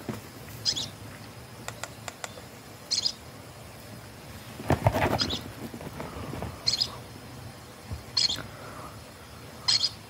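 Night-forest cartoon sound effects: short high chirps repeating every second or two, with a louder, lower call about halfway through and a few faint clicks around two seconds in.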